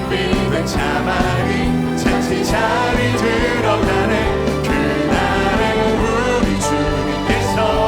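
Contemporary worship song performed live by a praise team: singers in harmony over a full band, with steady cymbal strokes.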